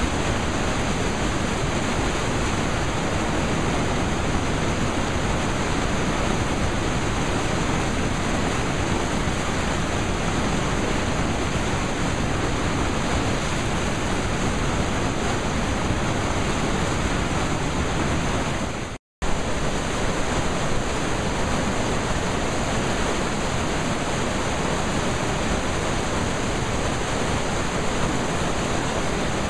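Steady rushing of the James River's whitewater rapids, with the sound cutting out for a split second about two-thirds of the way through.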